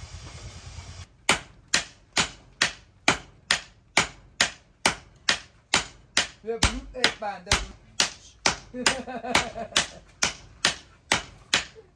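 Sledgehammer and hand hammer taking turns on a red-hot axe head on an anvil during hand forging. The even run of sharp metal strikes starts about a second in and goes at about two to three strikes a second.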